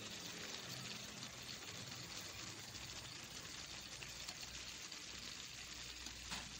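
Tamban herring frying in hot oil in a steel wok: a steady sizzle, with a brief click near the end.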